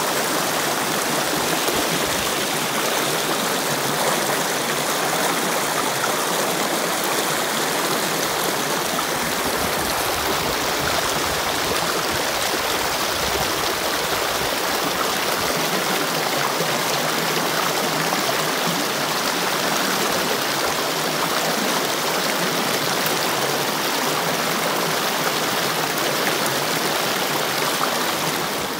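A small rocky creek rushing and splashing in white water over and between boulders, close up: a steady, unbroken rushing noise.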